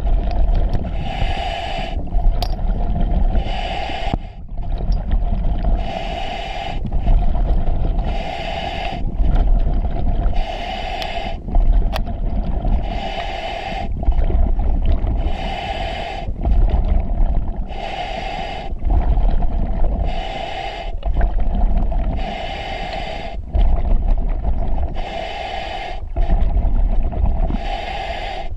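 Open-circuit scuba breathing through an EXO-26 full face mask. About every two seconds the demand regulator hisses for roughly a second on the inhale, then the exhaled bubbles rumble and gurgle.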